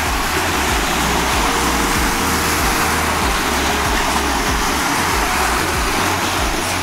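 Small waves of Lago Maggiore washing and fizzing over a pebbly shore: a steady rushing hiss of water, with a low rumble underneath.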